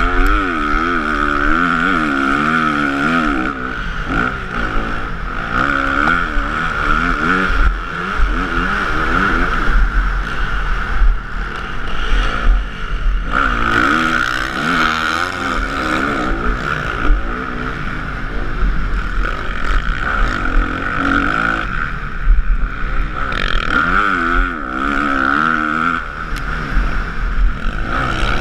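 Motocross bike engine heard from a camera mounted on the bike, revving up and falling back again and again as the rider accelerates and shifts around the track. Wind rushes over the microphone.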